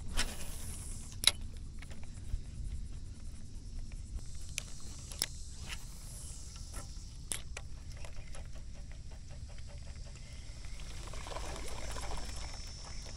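Spinning reel being cranked on a retrieve, a faint fast ticking, with a few sharp clicks from handling the rod and reel, over low wind rumble on the microphone.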